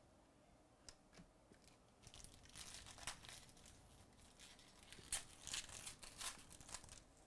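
The foil wrapper of a 2018 Chronicles Baseball card pack being torn open and crinkled by hand. A couple of light clicks of cards being handled come first, then crackling rips and crinkles run from about two seconds in until near the end.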